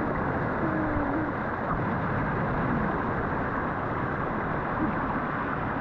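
Steady noise of a car driving.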